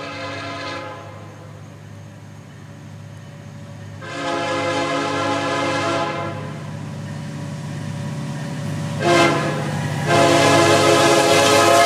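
Florida East Coast Railway freight locomotive's air horn sounding at a grade crossing as the train approaches: a blast of about a second, a long blast of about two seconds, a short blast and then another long blast, over a steady low rumble from the train.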